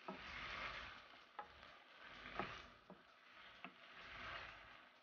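Wooden spatula stirring pork belly, tomatoes and onions in a stone-coated frying pan. A faint sizzle swells and fades with each stir, and the spatula knocks lightly against the pan about five times.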